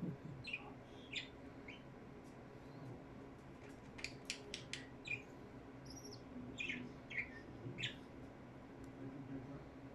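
Budgerigars chirping: short, scattered high chirps with a few sharp clicks between them, over a faint steady hum.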